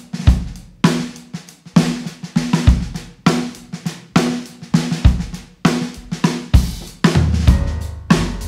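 Drum kit played with sticks in a steady rock beat, snare and bass drum with cymbals and hi-hat, strong hits a little more than once a second. Other band instruments hold sustained notes underneath, in an instrumental passage with no singing.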